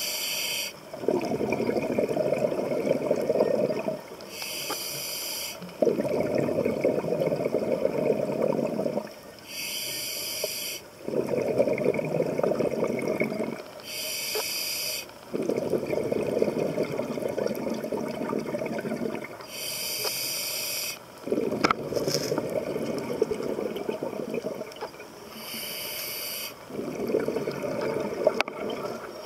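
Scuba diver breathing through a regulator underwater, in a regular rhythm: a short hiss from the regulator on each inhalation, then a few seconds of bubbling exhaust bubbles on each exhalation, about six breaths in all.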